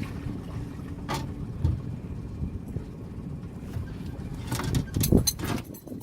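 Low steady rumble of a boat on the water, with a sharp knock about a second in and a quick cluster of knocks and rattles near the end.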